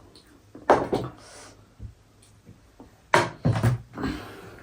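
A few short, sharp eating noises from someone eating soup and rice: one pair about a second in and a quicker cluster around three seconds in.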